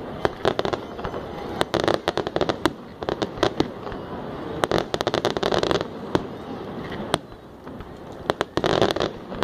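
Fireworks display going off: a steady series of sharp bangs and cracks, with dense rapid runs of crackling about two seconds in, around five seconds in, and near the end.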